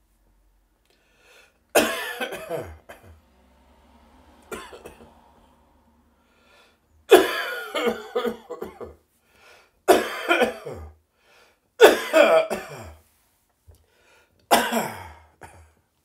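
A person coughing in fits, each fit a quick run of several coughs: five strong fits and a weaker one between the first two. The cough is turning slightly phlegmy.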